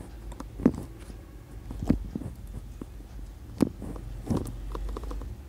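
Four sharp clicks and knocks, with smaller ticks between them, from handling a Canon FTb 35mm film camera as its controls are adjusted, over a low steady hum.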